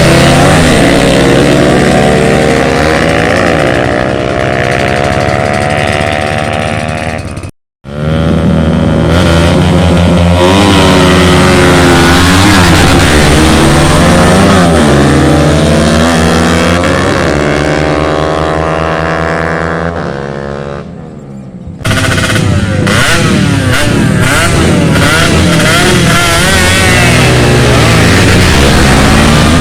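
Yamaha Vega motorcycles' small single-cylinder four-stroke engines revving hard in a drag race, the engine note climbing and falling repeatedly. The sound cuts out for a moment about eight seconds in and jumps abruptly again near twenty-two seconds.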